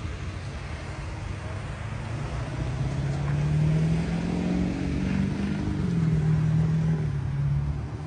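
A motor vehicle's engine running and speeding up, its pitch rising and growing louder from about two seconds in, easing briefly and picking up again, over a steady low rumble.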